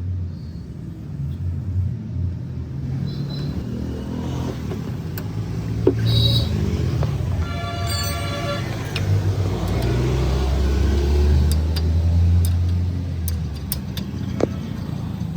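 Low, steady vehicle engine rumble, swelling for a few seconds past the middle, with scattered clicks and knocks and a short high-pitched tone about eight seconds in.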